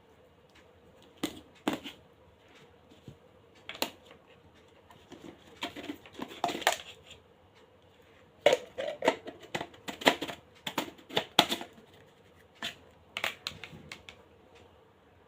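Hard plastic parts being handled: irregular sharp clicks, taps and light rattles with some rustling. They come thickest from about eight to twelve seconds in.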